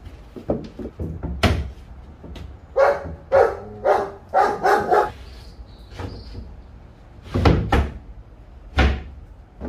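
Half-inch plywood panels knocking and bumping against the wooden frame and plywood floor of a home-built lift basket as they are set into its sides. Several separate knocks, plus a quick run of about five short, sharp sounds in the middle.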